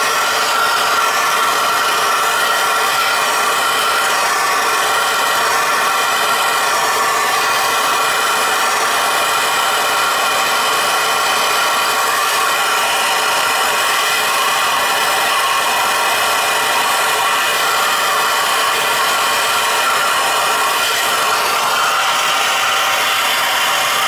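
Hose-fed soldering torch burning with a steady hiss and a faint whistle while it heats copper shutoff-valve joints for sweat-soldering.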